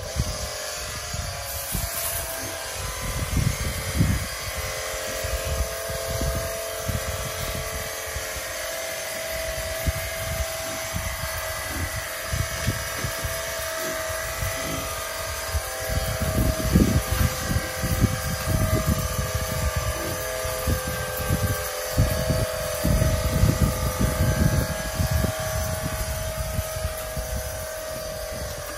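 A motor runs steadily, with irregular low rumbles and knocks that grow stronger about halfway through.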